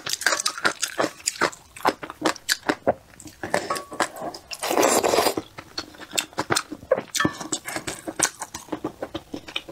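Close-miked eating sounds: wet chewing and lip smacking on wontons in soup, with one loud slurp about five seconds in.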